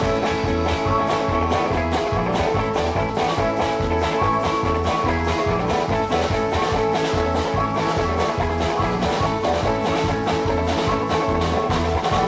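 Irish-style folk band playing an instrumental tune on fiddle and accordion, with a steady beat.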